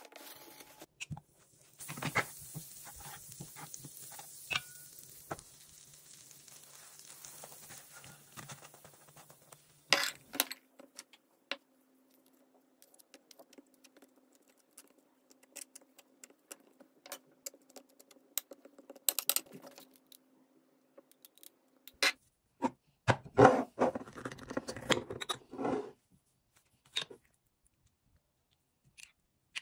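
Table knife and fork working food on a plate and a wooden board: scattered taps, clicks and scrapes as avocado is spread on toast and sun-dried tomatoes are forked out of a glass jar. A dense run of scraping and knocking about three-quarters of the way through is the loudest part. A steady hiss with a low hum runs under the first third.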